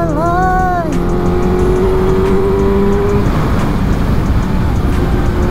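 Wind rush and motorcycle engine noise inside a riding helmet at speed. In the first second a rider's voice glides through a short sung phrase, followed by a steady drone until about three seconds in.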